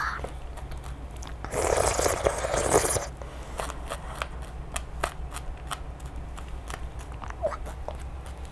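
Close-up eating sounds of balut with green chillies: many small crisp clicks and crunches, with a louder rustling, scraping stretch about one and a half seconds in that lasts for about a second and a half.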